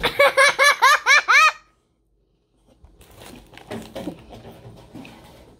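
A young girl laughing, about seven quick high-pitched ha's over a second and a half, which cut off suddenly. Quieter indistinct sounds follow after a short gap.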